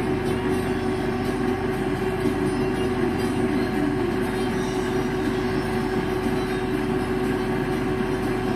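Metal lathe running steadily with a constant whine from its drive, while a single-point threading tool cuts a 1 inch 24 tpi thread on a bicycle fork's steerer tube.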